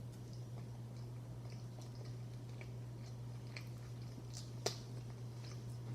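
A person chewing a fried chicken sandwich close to the microphone: faint wet mouth clicks and smacks, with one sharper click about two-thirds of the way through, over a steady low hum.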